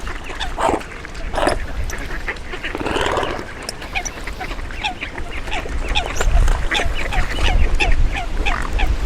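A flock of ducks and other waterfowl calling: a few louder quacks in the first two seconds, then a quick run of short calls, several a second, from about halfway. Wind rumbles on the microphone, getting stronger near the end.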